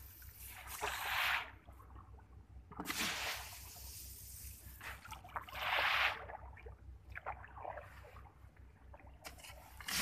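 Paddy grain flung from a wooden shovel showering onto open water, a hissing patter as the grains strike the surface, three times about every two to three seconds and a fourth near the end.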